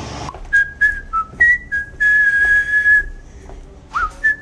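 A person whistling a tune in single clear notes: a run of short notes, one long held note in the middle, then after a short pause a quick upward swoop into more notes near the end.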